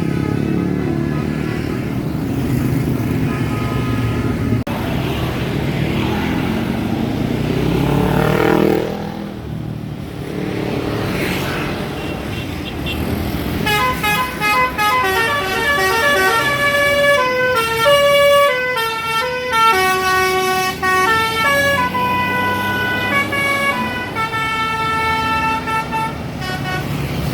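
Bus and traffic engine noise, then, from about halfway in, a telolet bus's multi-trumpet musical horn playing runs of quick stepping notes, repeated several times.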